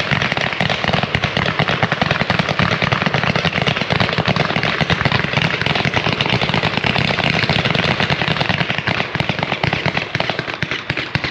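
A 49-shot Z-pattern fireworks cake firing red and blue ghost mines, a rapid, continuous volley of sharp shots that cuts off near the end.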